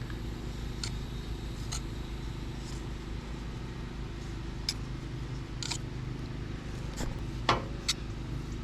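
An engine idling steadily with a low hum, with several light, sharp clicks and taps from PVC pipe fittings being handled and fitted together.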